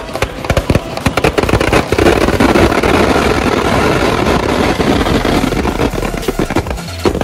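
Firecrackers packed inside a burning Ravana effigy going off in a rapid, irregular crackle of bangs. The bangs grow denser about two seconds in and thin out again near the end.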